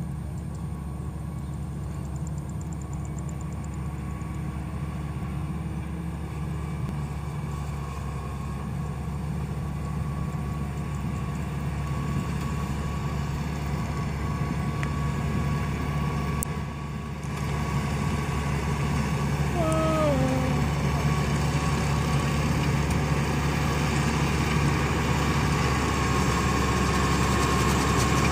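Maxxi Bimo 102L tracked rice combine harvester running steadily as it cuts and threshes standing rice, its engine and threshing machinery droning louder as it draws closer. A short falling call cuts in briefly about two-thirds of the way through.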